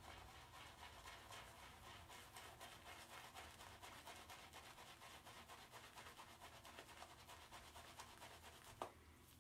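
Shaving brush swirling thick lather over stubble on the face: a faint, fast, scratchy rubbing of wet bristles. One short click near the end.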